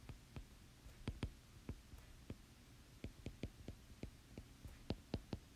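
Faint, irregular light clicks of a stylus tip tapping on a tablet's glass screen during handwriting, about two or three a second.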